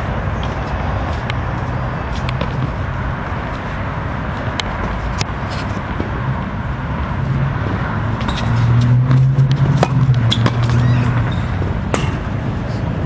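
Tennis rally during a doubles point: sharp pops of racket strikes and ball bounces at uneven intervals over steady outdoor background noise. A low hum swells about two-thirds of the way in and eases off before the end.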